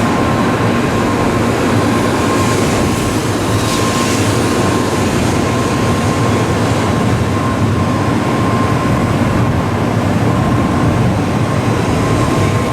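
Tokaido Shinkansen train moving through the station at a platform: a loud, steady rumble of wheels and rushing air with a thin steady whine.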